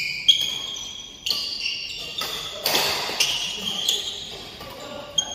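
Badminton rally: shuttlecock struck by rackets with sharp cracks about once a second, and court shoes squeaking in short high squeals on the floor. Players' voices call out in the middle.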